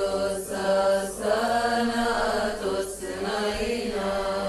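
Chanted singing of a Coptic Arabic madih (praise hymn): a melodic vocal line of several held notes that shift in pitch and break a few times, without clear words.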